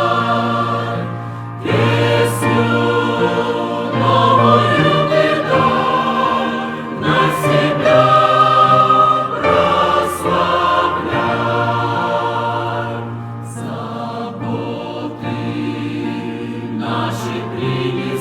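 Choir singing a slow hymn, with sustained chords that change every second or two.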